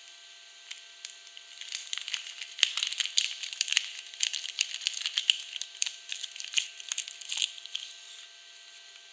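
Soap packaging being torn open and crinkled by hand: a dense run of crackles and sharp clicks that starts about a second and a half in and stops near the end.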